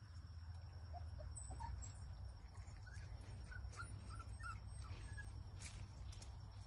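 Faint short squeaks and whimpers from young puppies: a few about a second in, then a quick run of them around three to four and a half seconds in, over a steady low rumble.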